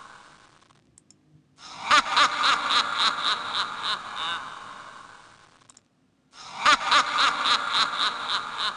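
Downloaded spooky-laughter sound effect, a cackling 'ha-ha-ha' of about four beats a second, triggered by clicks in a Scratch project. The tail of one laugh fades at the start, and two more laughs begin about one and a half seconds in and again about six and a half seconds in.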